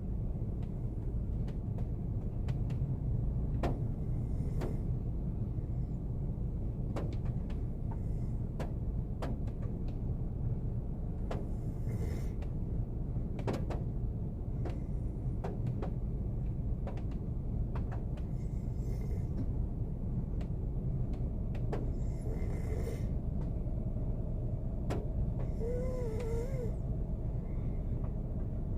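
A man snoring in his sleep inside a car: slow, breathy snores a few seconds apart, one with a short wavering whistle-like tone near the end. Under it runs the car's steady low hum, and rain drops tick irregularly on the roof.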